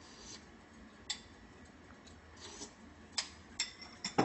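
Scattered light clicks and taps of a spoon against a small ceramic bowl as the soup is tasted, with the loudest clink just before the end.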